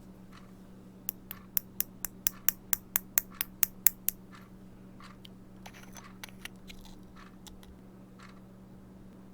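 Glossy mirror slime being pressed and worked by hand, giving a quick run of about fourteen sharp clicking pops, roughly four or five a second, which stops about four seconds in. A few fainter clicks and a brief scratchy rustle follow.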